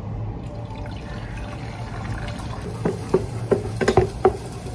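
Water poured from a bowl into an electric cooking pot, with a steady low hum, then a wooden spoon stirring and knocking against the pot about six times in the last two seconds.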